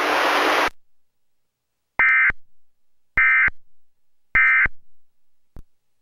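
A hiss that cuts off under a second in, then three short bursts of Emergency Alert System digital data tone, about a second apart: the SAME end-of-message code, which signals that the alert broadcast is over. A faint click follows near the end.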